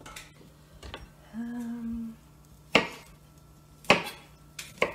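A chef's knife chopping broccoli on a cutting board: four sharp knife strikes in the second half. Before them comes a short hummed note lasting under a second.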